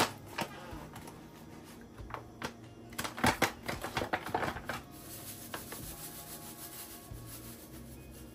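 Kitchen handling noise from bowls and utensils while flour and cornmeal are put together for dumpling dough: scattered sharp taps and knocks, a quick cluster of them about three seconds in, with some rubbing and scraping between.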